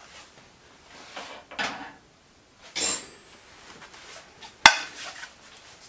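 Metal utensil scraping and clinking against a ceramic plate: a few soft scrapes, a ringing clink about three seconds in, and one sharp click a little later.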